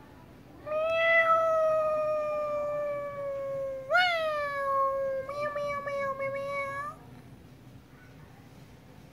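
A cat giving one long, drawn-out meow that sags slowly in pitch, jumps up sharply partway through and wavers before breaking off after about six seconds: a cat begging for food.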